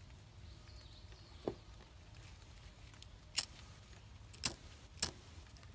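Ferro rod scraped with a striker three times in quick succession, each a short sharp scrape, throwing sparks to light quick tinder. A softer knock comes about a second and a half in.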